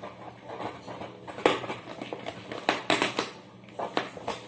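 Packaging being handled by hand: irregular rustling and crinkling with sharp taps and clicks, as the invoice is pulled out of the wrapped package.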